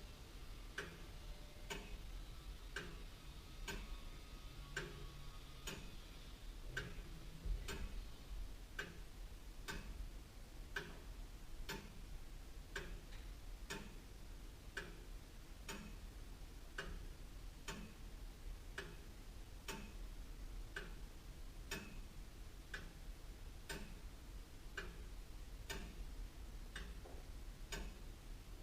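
Very old William Holliwell of Liverpool clock ticking steadily, about one tick a second.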